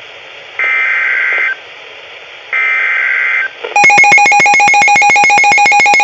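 EAS data bursts from NOAA Weather Radio: the SAME header, screechy digital tones that encode the severe thunderstorm warning. Two of them sound here, each a little under a second long and about a second apart. About four seconds in, a loud rapid pulsing electronic alert tone starts, the alarm that announces the warning.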